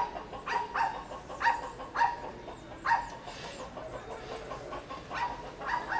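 An animal giving short, sharp barks over and over: a quick run in the first three seconds, a lull, then a few more near the end.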